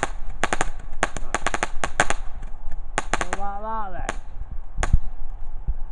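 Fireworks going off in a rapid, irregular string of sharp bangs and cracks for about three seconds, then one more single bang near the end.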